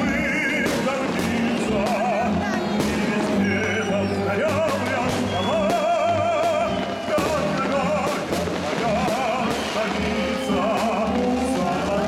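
Loud vocal music, a singer holding notes with a wide vibrato over an accompaniment, with firework shells bursting and crackling repeatedly throughout.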